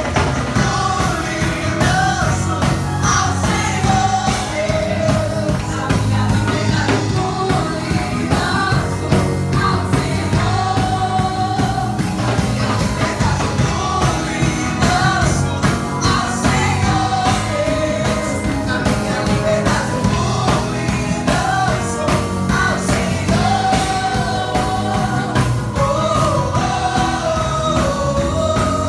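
Rock-style music with a sung lead vocal over a steady, full band beat.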